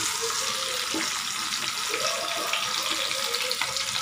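Potato and pumpkin strips sizzling steadily in hot mustard oil in a wok, with a few light knocks of a wooden spatula against the pan as the fried pieces are lifted out.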